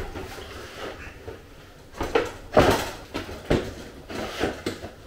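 A series of knocks and clicks from the hard case of an Elgato Green Screen as its feet are swung out and the case is shifted on a wooden floor, starting about two seconds in.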